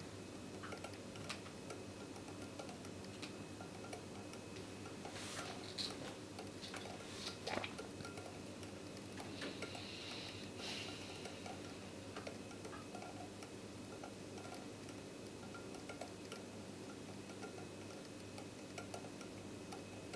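Copper-wire homopolar motor spinning on a battery and magnets: the wire's ends scrape and click faintly and irregularly against the magnets, with a few louder scrapes about a third and half-way through.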